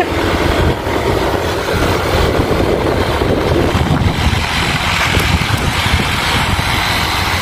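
Wind buffeting a phone microphone on a moving small scooter, a loud, rough, steady rumble with the hiss of the ride behind it.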